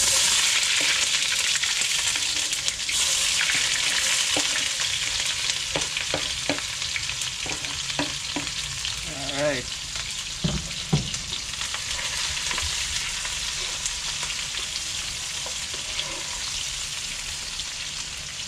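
Chopped onion hitting hot cooking oil in a pot: a loud sizzle starts abruptly and then keeps frying, slowly easing off, with a stirring utensil clicking and knocking against the pot now and then. It marks the first stage of a curry, the onion frying in the hot oil.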